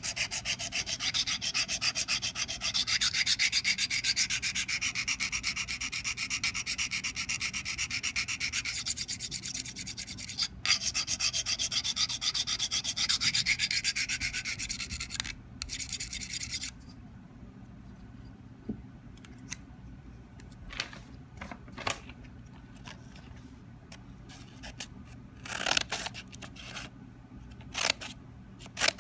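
Scissor blade rubbed in quick, rhythmic back-and-forth strokes on a sharpening stone: a steady scraping rasp with two brief pauses, stopping a little past halfway. After that, only a few scattered short clicks.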